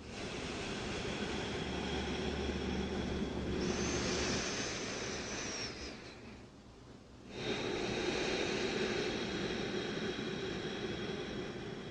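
Deep breathing close to the microphone: one long breath of about six seconds, a short pause, then another long breath that tails off near the end.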